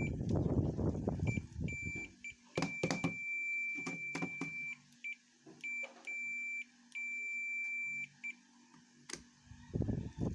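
Digital multimeter's buzzer beeping in irregular on-off beeps of uneven length, from short blips to one of about two seconds, with rustling handling noise at the start and a few sharp clicks.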